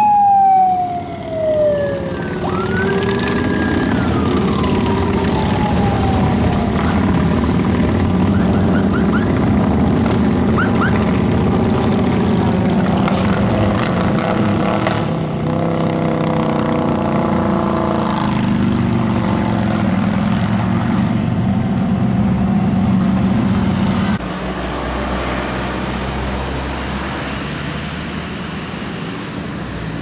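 A siren sweeps down in pitch, then up and down again, in the first few seconds. Then large cruiser motorcycles rumble steadily past in a group, until the sound drops about 24 seconds in to quieter, lower passing traffic.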